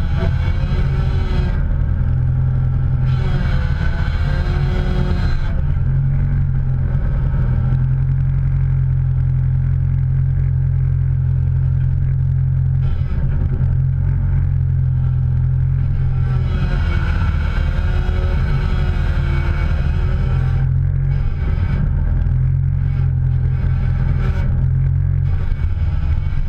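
A vehicle running with a steady low drone. Fainter wavering tones rise and fall above it during the first few seconds and again about two-thirds of the way through.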